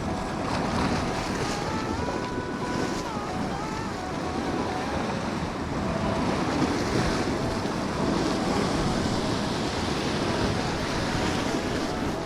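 Strong wind buffeting the microphone over waves surging against a rocky shore, a steady rushing noise that swells and eases.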